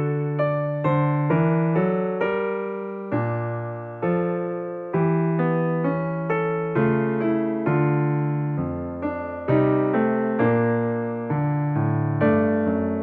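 Soft piano music: chords and a melody struck note by note, each note fading before the next, at a gentle pace.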